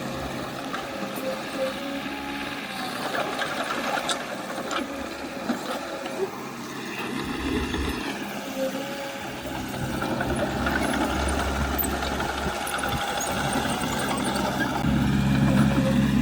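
Engine of heavy earthmoving machinery running steadily, with scattered short clanks, growing louder near the end.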